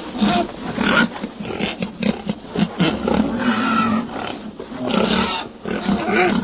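Several pigs grunting and oinking over one another in a dense, continuous chorus of short calls.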